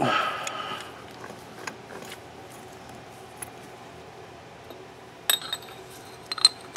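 A short scraping rustle of handling at the start, then scattered light taps, and near the end a run of bright metallic clicks and clinks as a steel wrist pin and a two-stroke piston are handled and fitted together.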